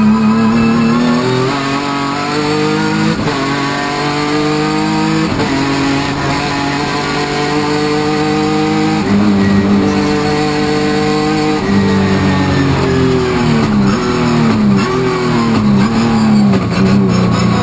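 Hyundai Genesis Coupe race car engine heard from inside the cockpit at full throttle, revs climbing and dropping sharply at each upshift through the first few seconds. In the second half the revs sweep down and back up several times through the corners.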